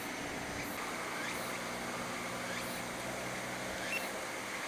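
Outdoor roadside ambience: a steady low hum under a faint high-pitched chirping that repeats roughly once a second.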